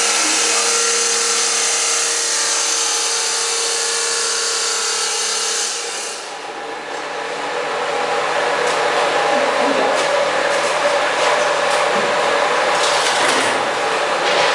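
Automatic wall plastering machine's electric motor running with a steady hum and high whine. About six seconds in the sound dips briefly, then gives way to a harsher, hissing running sound with scattered clicks.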